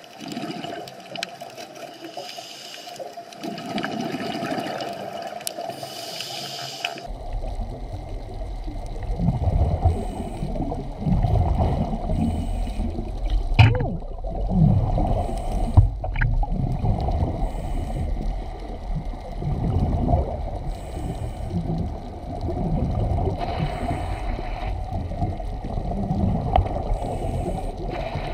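Muffled underwater water noise picked up through the camera, turning deeper and heavier about seven seconds in, with two sharp clicks near the middle.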